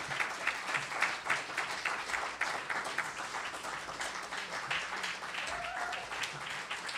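Audience applauding: a steady spatter of many hands clapping.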